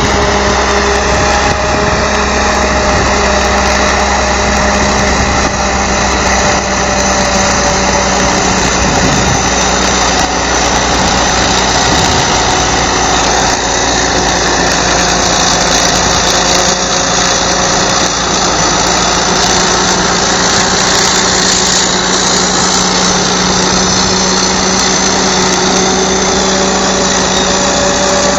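Caterpillar D8H bulldozer's diesel engine running loud and steady, holding an even pitch.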